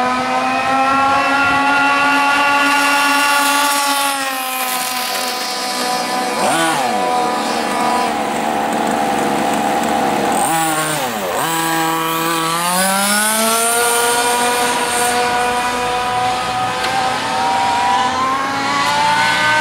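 Small two-stroke petrol engines of large-scale gas RC cars running hard at high revs. Their pitch slides down and back up as they race, with quick swooping pitch changes around seven and eleven seconds in as a car shoots past.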